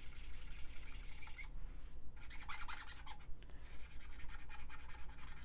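Ecoline brush pen's soft tip rubbing and scratching across sketchbook paper in runs of strokes, with short pauses about a second and a half in and again after about three seconds.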